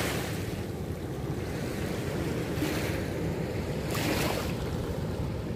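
Strong river current rushing steadily, with wind buffeting the microphone in a low rumble that swells briefly a couple of times.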